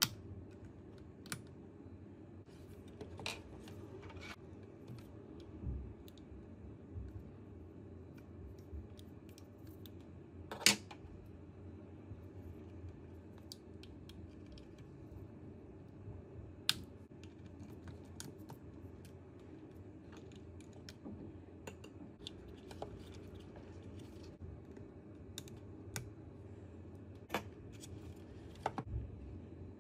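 Faint, scattered clicks and snips of small hand tools cutting and prying out the old rubber gimbal holder of a DJI Mini 4 Pro drone, over a low steady hum; the sharpest click comes about ten seconds in.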